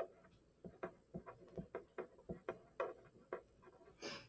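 A pen writing on a paper worksheet: faint, irregular taps and scratches of the pen tip as letters are formed, about three or four a second, with a brief hiss near the end.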